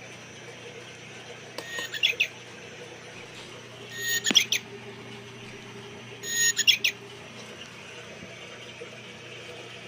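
Recorded birdsong played through a bird-sound clock's small speaker: three short bursts of chirps a little over two seconds apart.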